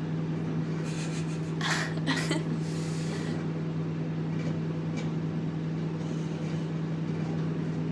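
Microwave oven running with its steady low hum, with a few brief soft rustling noises about two seconds in.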